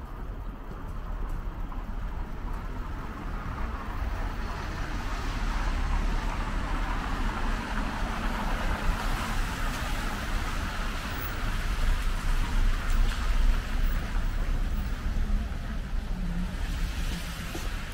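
Street traffic: passing cars with tyre and engine noise, swelling a few seconds in and again near the end, over a steady low city rumble.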